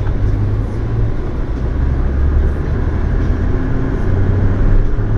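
Engine and road noise of a moving car, heard from inside the cabin: a steady low rumble.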